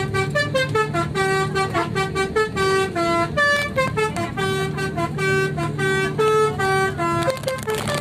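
Bus "telolet" musical air horn playing a repeating multi-note tune, each note a short held tone stepping up and down in pitch, over a steady low hum.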